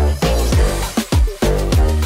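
Background music: an upbeat electronic track with a deep bass and a steady beat.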